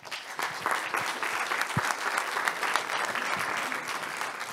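Audience applauding: a dense, steady clatter of many hands clapping that starts at once, with a single brief low thump about two seconds in.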